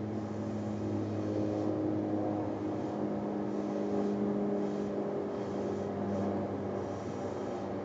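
A steady low machine hum with a light hiss above it.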